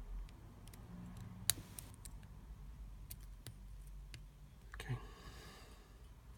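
Faint metallic clicking and scraping of a Sparrows lock pick working the pins of a Yale 125/50 padlock under tension. A sharper click comes about a second and a half in, and a short scraping rattle about five seconds in.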